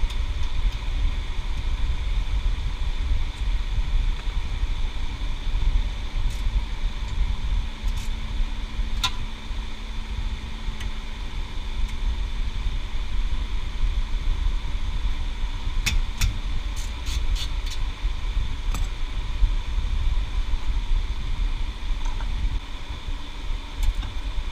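Steady low background rumble and hum throughout, with scattered sharp metallic clinks of a wrench on the rear brake caliper and its bolts, several in a quick run a little past the middle.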